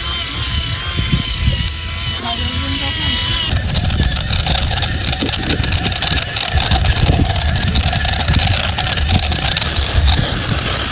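Radio-controlled model truck running, with a steady electric whine for about three and a half seconds. The sound then cuts abruptly to a rougher rumble with rapid low knocks, as of the model working over the ground.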